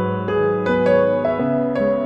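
Background music: a gentle piano or electric-piano melody, notes struck every few tenths of a second over sustained chords.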